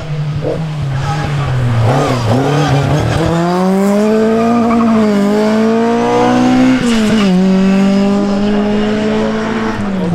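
Rally car engine revving hard: the note climbs for a few seconds, drops sharply about seven seconds in, then holds steady.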